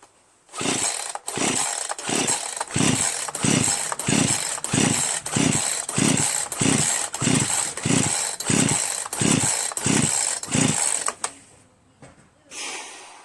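Poulan Pro PR4218 two-stroke chainsaw cranked over and over on its recoil starter cord, a rhythmic whirring about twice a second that stops about eleven seconds in. The engine doesn't fire: it makes only about 30 psi of compression, from a badly scored piston, rings and cylinder wall.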